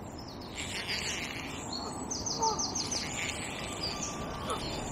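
Small songbirds singing high, quick twittering phrases, with a fast run of about eight repeated notes about two seconds in, over a steady rush of wind.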